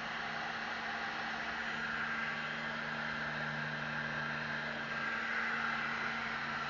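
Electric heat gun running steadily: an even blowing hiss over a low motor hum, used to soften a drill's plastic housing.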